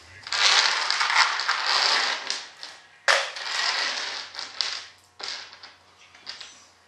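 Hand-tool work with an adjustable wrench: irregular scraping and rustling with sharp clicks, loudest in the first two seconds, with another burst about three seconds in and smaller clicks after.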